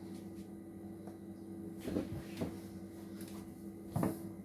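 Steady low electrical hum with a few faint knocks, about two seconds in and again near the end.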